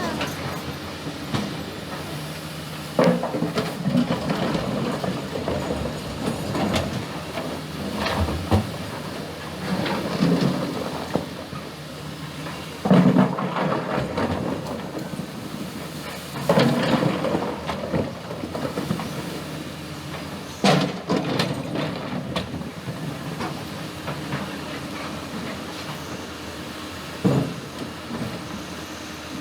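Excavator's diesel engine running steadily, with loud clatters and scrapes of rock about eight times as the bucket digs and drops stones.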